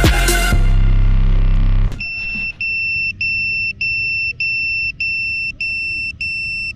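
Background music cuts off about two seconds in with a brief thump as the FPV drone comes down in the grass. Then the drone's piezo buzzer beeps steadily: long, high-pitched beeps with short gaps, a little under two a second.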